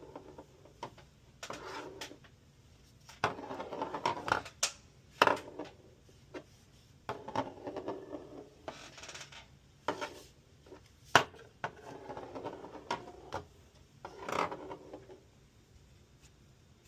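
Hard objects being handled: irregular bursts of clattering and rattling with sharp clicks and knocks, dying down near the end.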